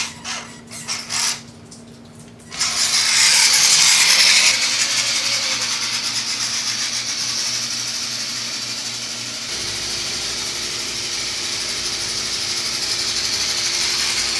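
Electric motor and gear drivetrain of a Vaterra Slickrock RC rock crawler. It gives a few short whirring bursts, then runs steadily with a high whine from about two and a half seconds in as the truck drives along.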